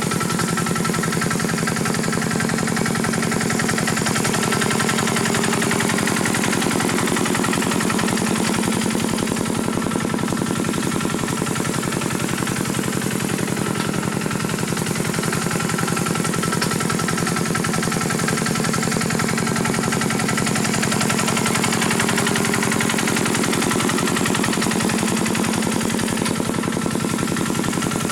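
A small tractor engine running steadily at constant speed, its rapid, even firing beats giving a fast rattle.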